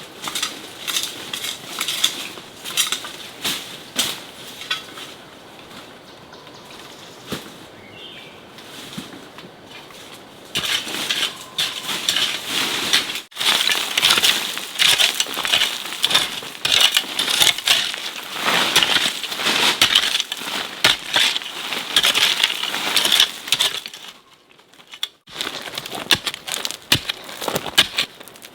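Dense, irregular crackling and rustling, like plant material and earth being broken and handled. It grows busier and louder about ten seconds in and stops briefly near the end.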